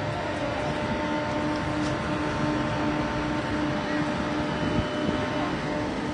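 Steady drone of motor vehicle engines running, with a constant low hum over a wash of traffic noise.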